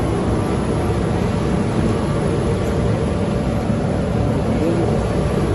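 Double-sided adhesive tape pasting machine running with a steady, even mechanical noise as sheets feed through on its rollers and belt.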